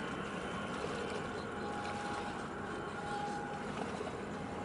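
Steady distant hum of ships and port machinery in the harbour. A faint high tone comes and goes twice near the middle.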